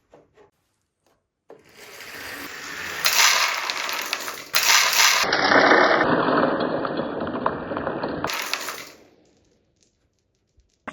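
Marble-run pieces rolling and clattering down a wooden track: a dense run of small rattling clicks that builds up from about a second and a half in, shifts tone abruptly several times, and fades out near the end.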